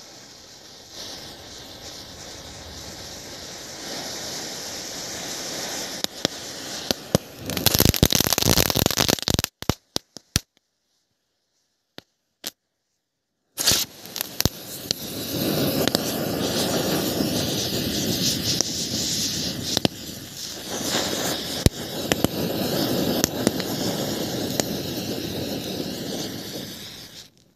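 A chain of matchsticks burning with a crackling hiss that grows louder, then Diwali fireworks going off: a run of sharp firecracker cracks, a few seconds of silence, then a firework fountain spraying sparks with a loud steady hiss and scattered pops.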